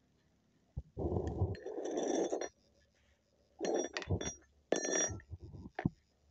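Metal tools and parts being handled on a concrete floor: several short clinks and scrapes, some with a ringing metallic tone, in three bursts after a quiet first second.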